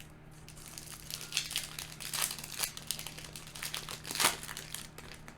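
Foil wrapper of a Yu-Gi-Oh! booster pack crinkling in a run of short bursts as it is handled and torn open.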